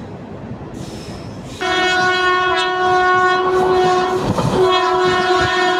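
Locomotive air horn sounding a long steady blast from about a second and a half in, with a brief break near the middle, over the rumble of a moving train heard through an open coach doorway.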